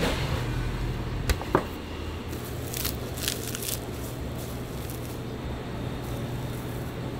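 Gloved hands rolling raw pork belly around a herb-stuffed pork loin, making soft handling and rustling sounds over a steady low hum. Two sharp clicks come a little over a second in, and a few brief crinkly rustles follow around the three-second mark.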